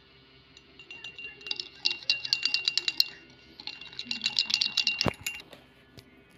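Metal teaspoon stirring in a drinking glass, clinking quickly against its sides with a ringing tone, in two bouts. A single knock comes near the end of the second bout.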